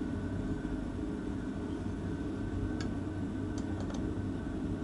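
Power drill turning a hole saw as it cuts into the fuel tank for a sump: a steady low running sound with a thin steady whine. A few light ticks come between about three and four seconds in.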